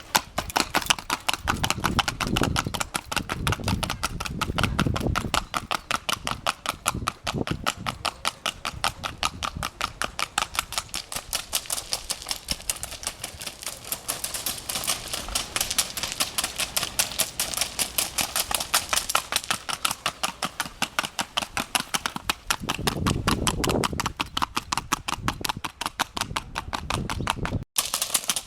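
A mare's hooves beating in a rapid, very even clicking rhythm, many strikes a second, as she moves at a steady gait. A few low rumbles come in about two to five seconds in and again near the end.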